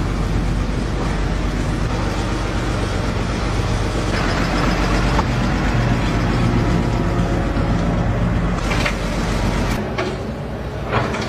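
Heavy construction machinery's diesel engine running steadily, with a couple of short knocks near the end.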